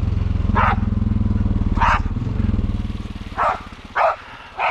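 Honda Foreman 500 ATV's single-cylinder engine running with an even pulse, then easing off and going quieter about three seconds in. A dog barks five times over it, the last three in quick succession.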